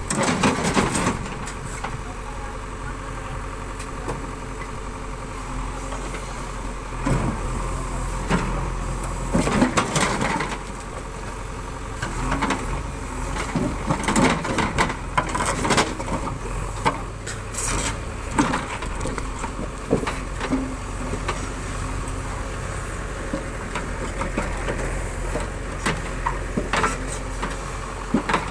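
JCB 3DX backhoe loader's diesel engine running steadily while the machine works soil, with irregular louder bursts of noise over the engine hum.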